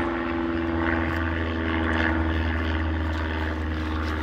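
Airplane flying past, its engine giving a steady drone.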